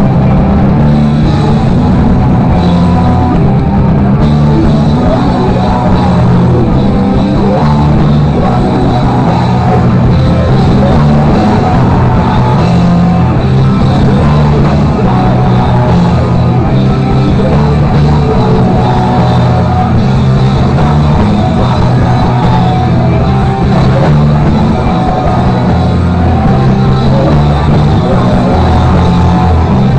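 A live rock band playing loud and without a break: drum kit and electric guitars, heard from inside the crowd.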